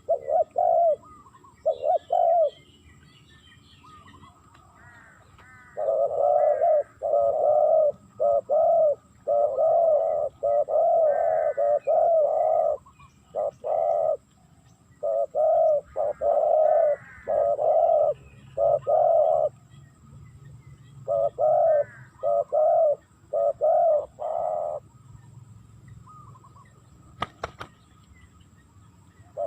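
Spotted doves cooing: repeated phrases of low coos in runs, with short gaps between notes and longer pauses a few seconds in and again near the end.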